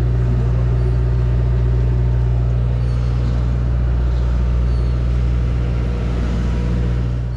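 Steady low drone of the sportfishing boat's engine running, even and unchanging throughout.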